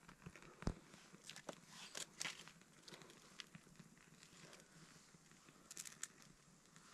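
Faint, sparse clicks and crackles of dry wood splinters being handled and a small kindling fire being lit, with a short flurry of crackles about six seconds in.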